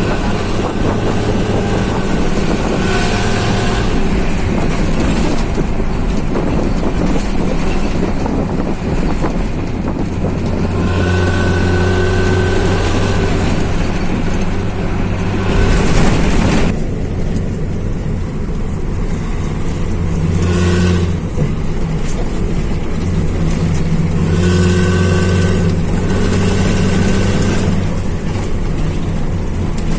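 PO Mulyo bus's diesel engine and exhaust running on the road, with a deep steady drone whose note swells and eases as the driver works the throttle. There is a brief louder rush about halfway through.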